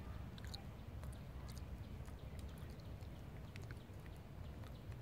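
Outdoor background noise: a steady low rumble with a few faint, scattered clicks.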